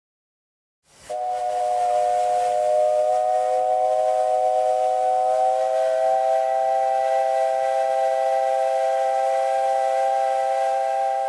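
Japanese Government Railways three-chime steam whistle, of the type sourced from a JGR 9600 class steam locomotive, blowing one long steady chord of three tones over steam hiss. It starts about a second in and fades at the end.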